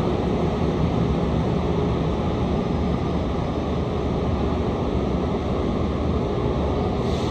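Steady rumble of an Amtrak Acela train rolling slowly out of the station tracks, with a faint steady hum through it.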